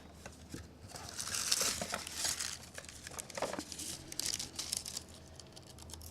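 Paper crinkling and rasping in several short bursts, loudest from about one to two and a half seconds in, as a sharp multitool blade is tried on it.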